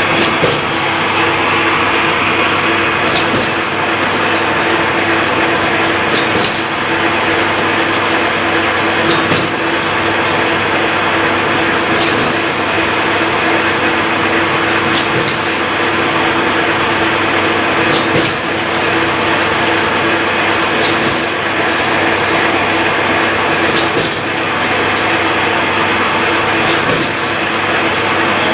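CNC wire straightening and cutting machine running: a steady loud mechanical hum as the wire is fed and straightened, with a sharp metallic snap about every three seconds as each length of wire is cut off.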